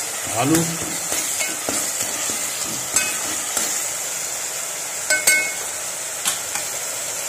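Onion-tomato masala frying in oil in an aluminium pot, a steady sizzle, cooked to the point where the oil has separated. A metal ladle stirs it and knocks against the pot a few times; the loudest knock, a little past halfway, rings briefly.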